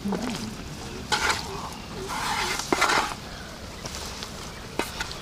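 A hand tossing and squeezing cauliflower florets coated in wet masala paste in a metal bowl: bursts of squelching, rustling handfuls with a couple of sharp taps against the bowl.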